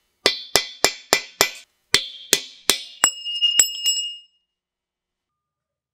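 A hammer striking a steel punch set inside the end of a Chrysler 8.25 rear axle tube: about ten sharp metallic blows, roughly three a second, the last few ringing. The blows stop about four seconds in.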